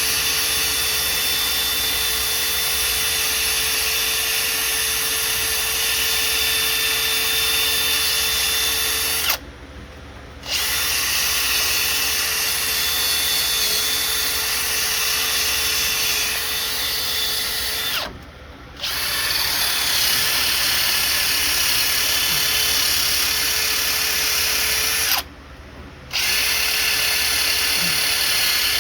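Handheld power tool running steadily, scrubbing gunk and rust off the exhaust port gasket faces of a Chevy 305 small-block's cylinder head. It stops for about a second three times, then starts again.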